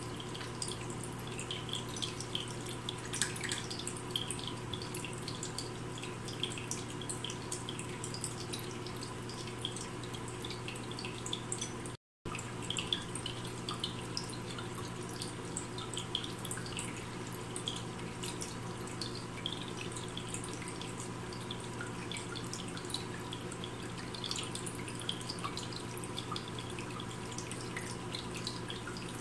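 MOSPRO pet water fountain running continuously: water trickling and dripping from its spout, with a steady hum underneath. The sound drops out for a moment about twelve seconds in.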